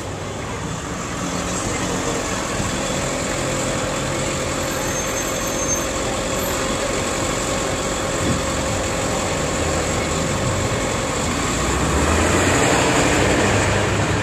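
Street traffic with a motor vehicle's engine running steadily, growing louder near the end.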